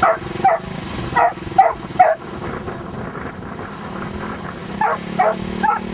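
A dog barking in short, sharp yelps: five in quick succession in the first two seconds, then three more near the end.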